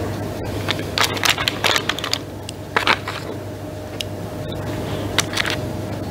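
Short crackles and clicks of a plastic praline tray as chocolates are picked out of it one at a time and set on a glazed cake, in irregular clusters over a steady low hum.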